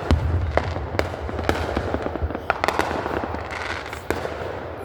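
Aerial fireworks going off: a deep boom right at the start, then a run of sharp crackling reports and bangs with rumbling echo.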